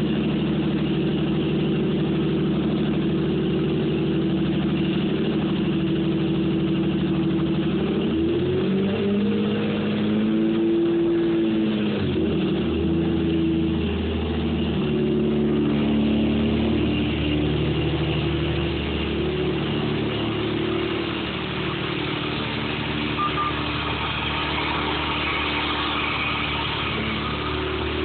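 Toyota Supra engine running just after being started on a freshly rebuilt starter, with a strange high-pitched rotational noise over the idle, caused by an extra part added to the starter during the rebuild. The engine revs up once and settles back about nine seconds in.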